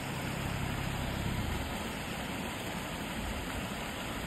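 Small creek rushing and cascading over rocks: a steady, even rush of water with a low rumble underneath.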